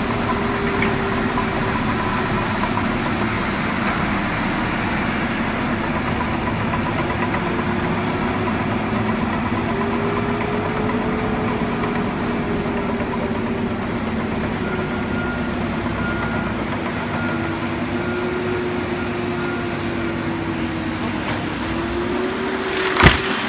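Backhoe engine running steadily, its pitch wavering a little as the machine works. A backup alarm beeps about once a second for several seconds past the middle. A single sharp bang comes near the end.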